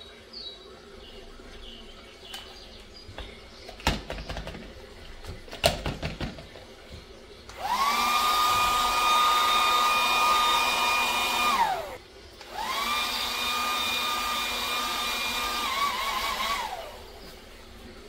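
A small high-speed electric kitchen-appliance motor runs twice, about four seconds each time, with a high whine that rises as it spins up and falls as it winds down. A few clicks and knocks come before it.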